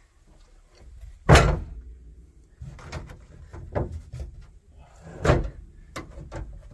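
Heavy rubber floor mats being dropped and pushed into place on a metal vehicle floor: two loud thuds, about a second in and about five seconds in, with lighter knocks and scuffs between.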